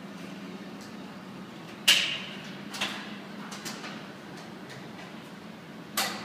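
Two sharp metallic clanks about four seconds apart, the first ringing briefly, with a few lighter knocks between them, over a steady low hum.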